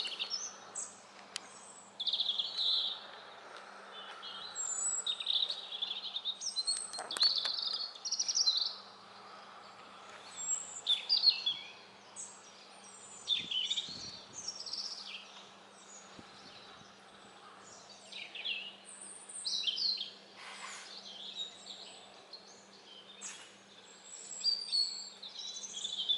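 Wild birds singing: short, varied chirps, whistles and trills, phrase after phrase every second or two, over a faint steady low hum.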